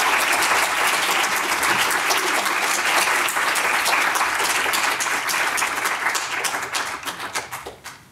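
Audience applauding, a dense burst of clapping that thins to scattered claps and dies away near the end.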